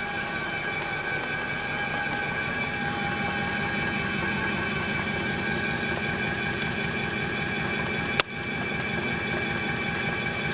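CNC machining center milling: the spindle and cutter run with a steady, multi-toned whine over a fast rhythmic chatter of the cutting. A single sharp click comes about eight seconds in.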